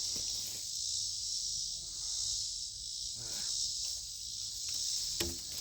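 A steady high-pitched chorus of insects drones, gently swelling and easing. A couple of faint thuds come near the end.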